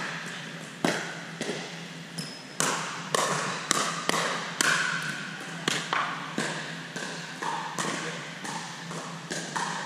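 Pickleball rally in a gym: a run of sharp pops as composite paddles strike the hollow plastic ball, coming about every half second to second, each with a short echo off the hall's hard walls.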